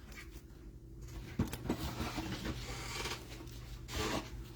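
Trading cards being handled, sliding and rubbing against each other and the table in a soft, irregular rustle with small ticks.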